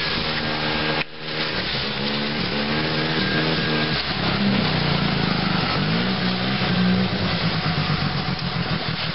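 Wankel rotary engine of a 1973 Alouette Silver Cloud snowmobile running as the sled is ridden, its pitch rising and falling with the throttle. The sound drops out briefly about a second in.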